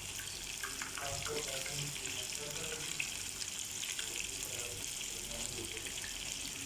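Chicken nuggets frying in hot oil: a steady sizzle with many small crackles and pops.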